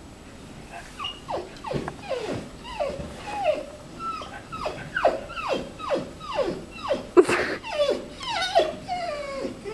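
Black Labrador retriever whining over and over, a quick run of high whines that each slide down in pitch, about two a second, beginning about a second in. It is the needy whine of a dog kept apart from its owner, whom it can see in a horse stall.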